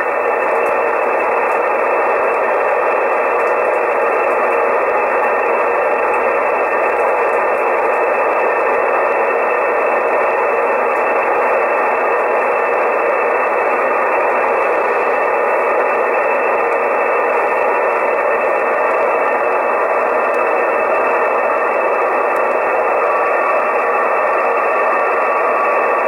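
Shortwave receiver hiss: steady band noise from a Soft66RTL2 software-defined radio in upper-sideband mode on the 20-meter amateur band, with no station on frequency. A steady whistle tone joins in near the end.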